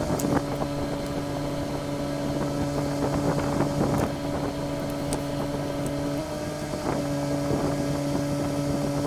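Steady motor hum with wind noise on the microphone and a few light clicks and knocks. The hum's pitch shifts slightly about six seconds in.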